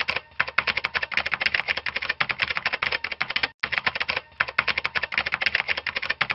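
Rapid keyboard typing clicks, about a dozen a second, broken by a few brief pauses: a typing sound effect laid under on-screen text as it is typed out.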